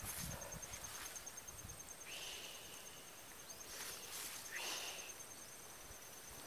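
Faint insects trilling steadily in the grassland, a high pulsed note that never stops, with two brief higher chirps about two and about four and a half seconds in and a couple of short rustles.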